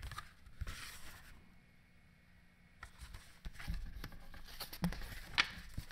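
Faint rustling and soft scraping of a children's picture book's paper pages being turned and handled, with a sharper click near the end.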